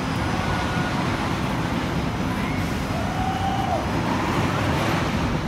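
Steady outdoor amusement-park background noise, with a few faint high tones that waver up and down.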